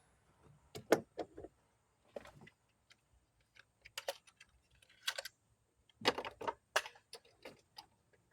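Scattered light metallic clicks and clinks of a spark plug and hand tools being handled, with a quick run of clinks about six seconds in.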